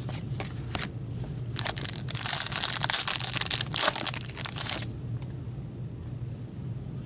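Foil trading-card pack being torn open and its wrapper crinkled: a dense crackle lasting about three seconds, preceded by a few light clicks.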